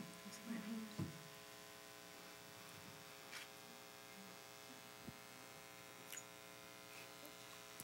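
Near silence in a conference room, carried by a steady electrical hum, with a few faint clicks.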